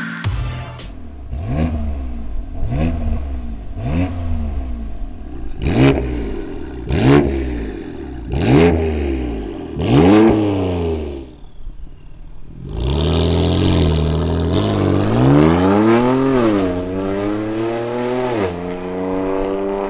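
BMW F82 M4's twin-turbo straight-six through a straight-piped turbo-back exhaust with its valves open. First about seven quick rev blips, each pitch rising and falling sharply. After a short lull the car pulls away, its pitch climbing and dropping with the upshifts as it draws off.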